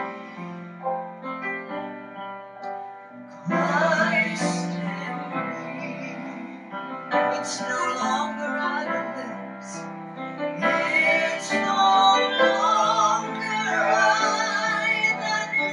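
Woman singing a gospel song with piano accompaniment. The piano plays alone at first, and her voice comes in strongly about three and a half seconds in.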